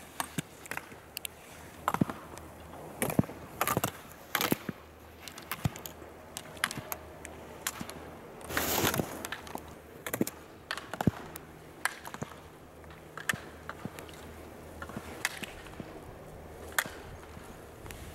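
Slalom skis scraping on hard-packed snow, with irregular sharp clacks as the racers knock the slalom gate poles aside. There is one longer scrape about nine seconds in.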